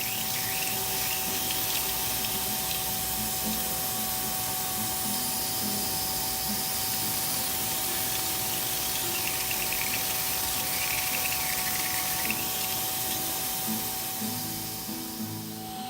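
Vacuum cleaner run in reverse as a blower, with a steady whine over a rush of air. It is pushing air into the exhaust system to find leaks. Patches of hiss come from a hand-pump garden sprayer wetting the exhaust with soapy water, mostly near the start and again in the last third.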